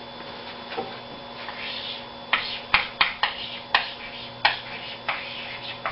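Chalk writing on a blackboard: about eight short taps and scratches over about three seconds, starting about two seconds in, as the words are written out.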